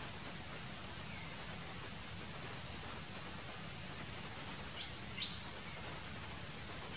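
Steady high-pitched insect drone from the surrounding forest, with two quick high chirps about five seconds in.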